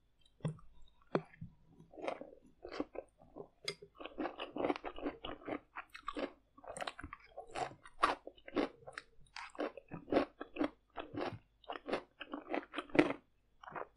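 Close-miked chewing and biting of stir-fried noodles with green beans, cabbage and carrots: a fast run of short chews, sparse at first and packed close together from about four seconds in.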